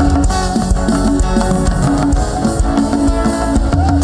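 Live worship band playing an upbeat instrumental passage between sung lines, with guitar over drum kit and bass in a steady, loud groove.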